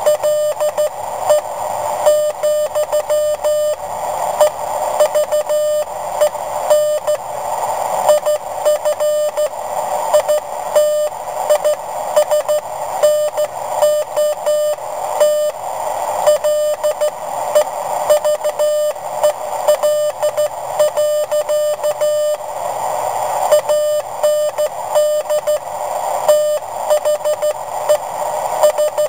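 Morse code sent by hand on a WB9LPU GoBug semiautomatic (bug) key, heard as a sidetone beeping at about 600 Hz in rapid, uneven runs of dots and dashes.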